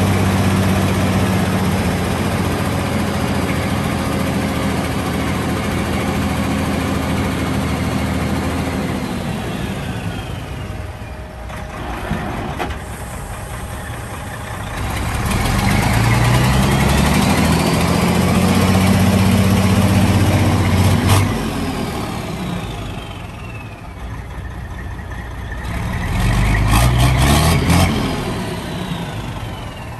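Detroit Diesel Series 60 inline-six diesel of a 1998 Volvo dump truck running at raised revs as the dump bed's hydraulic hoist is worked; the revs fall away, climb again and hold, then drop and rise once more briefly near the end. A few sharp clicks come as the revs change.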